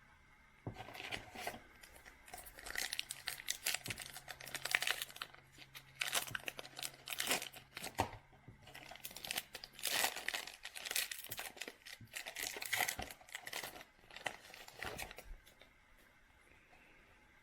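Foil trading-card pack wrapper being torn open and crinkled by hand, in several spells of crackling with short pauses, starting about a second in and stopping near the end.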